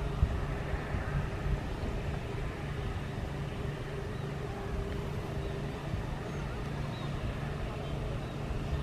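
Airliner jet engines running at a steady pitch: a low rumble with a faint steady hum over it.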